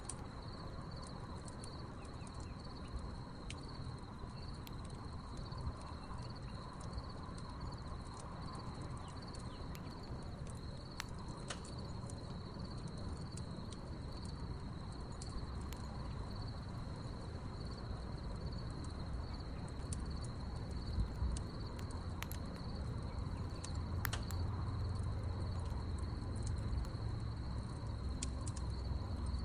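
Crickets trilling steadily with a high, pulsing chirp, over scattered sharp crackles and pops from a burning wood campfire. A low rumble grows louder near the end.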